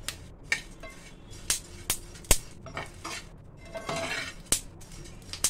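Shelled muskmelon seeds dry-roasting in a non-stick pan, crackling with scattered sharp pops, while a steel spoon stirs and scrapes them around the pan. The crackle is the sign that the seeds are perfectly roasted.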